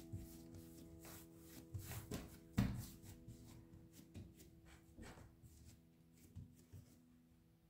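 Soft background music with held notes that stops near the end, over soft thumps and rubbing of bread dough being folded and pressed into a ball by hand on a wooden tabletop, with one louder thud about two and a half seconds in.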